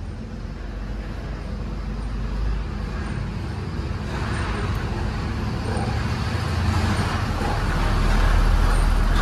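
A motor vehicle's low rumble growing steadily louder as it approaches.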